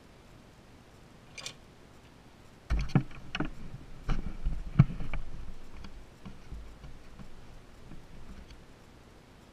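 Handling noise on a watchmaker's bench: a light click, then a cluster of sharp knocks and clicks over a low rumble, dying away into softer rumbling and faint ticks.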